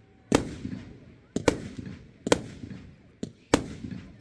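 Fireworks display: a string of sharp bangs, about one a second, with a few smaller pops between them, each bang trailing off in echo.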